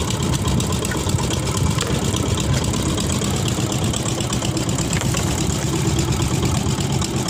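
Small wooden fishing boat's engine running steadily and evenly while the gill net is hauled in.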